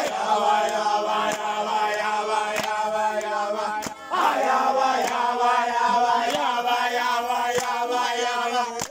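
Group of men and boys singing a chant together, with sharp hand claps keeping a beat about every second and a quarter. The singing breaks off briefly about four seconds in, then picks up again.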